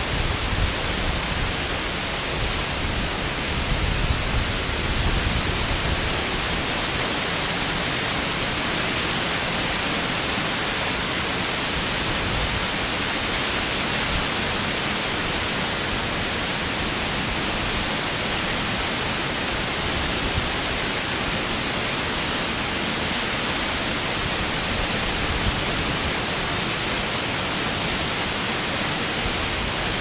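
Bâlea waterfall's torrent rushing down steep rock slabs at close range: a loud, steady, unbroken wash of falling water.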